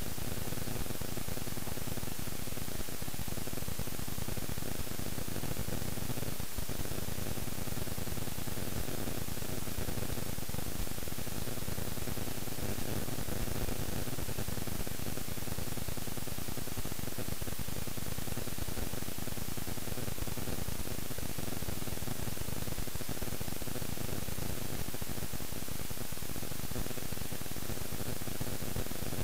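Steady, even static hiss with a faint hum underneath, unchanging throughout.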